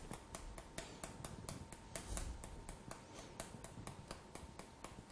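Faint, rapid clicks, about four a second: a canister of bicarbonate of soda being tapped to sprinkle the powder onto a teaspoon.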